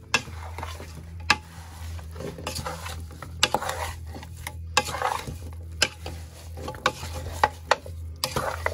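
Raw seasoned chicken pieces being stirred and turned with a wooden spatula in a metal pot: wet squishing and shuffling of the meat, with irregular sharp knocks of the spatula against the pot's side about once a second.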